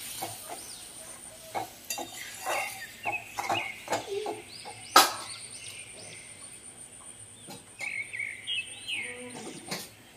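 A spatula stirring and knocking against a metal wok as the curry is stirred, with one sharp knock about five seconds in. Birds chirp in the background in two short spells.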